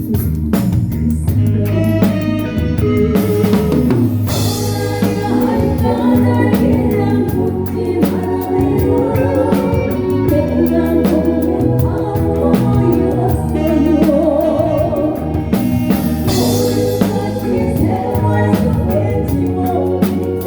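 Live band playing a song with drum kit, with a singer singing over it in a wavering vibrato. Cymbal crashes come about four seconds in and again around sixteen seconds.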